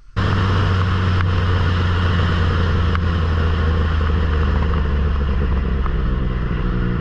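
Can-Am Ryker 900's three-cylinder engine running steadily through an aftermarket RLS Predator exhaust, with heavy wind noise on the microphone. It starts abruptly.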